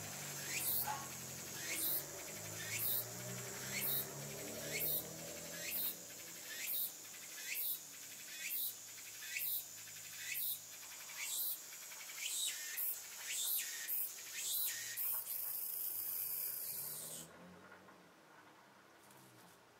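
A cicada singing: a high buzzing phrase repeated about once a second, running into one continuous buzz near the end that then stops suddenly.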